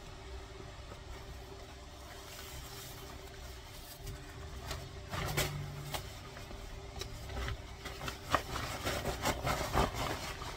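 Rustling of waterproof rain trousers being pulled on over rubber rain boots, in short bursts about halfway through and again near the end, over a low steady hum.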